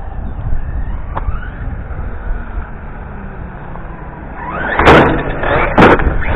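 Kronos RC monster truck coming in close over the ramp, a loud rush of noise with two sharp knocks about a second apart as it hits the ramp and lands in the dirt, four to six seconds in. Before that there is only a steady low rumble of wind on the microphone.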